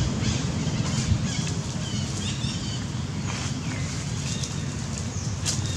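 Outdoor ambience: a steady low rumble, with scattered short high chirps and a few light rustles over it.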